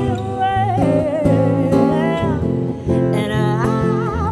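A woman singing a song live into a microphone over instrumental accompaniment, her long held notes wavering with vibrato in the last second or so.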